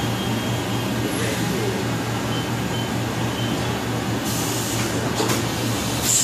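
1996 Fadal VMC-8030HT vertical machining center running with a steady machine hum. A hiss comes in about four seconds in, with a short burst near the end.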